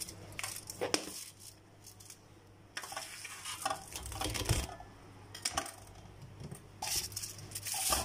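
Hands wrapping a stuffed chicken thigh in plastic cling film on a stainless steel tray: scattered crinkles of the film and light clicks and clinks against the metal tray. Near the end a denser, continuous rustle sets in as aluminium foil is handled.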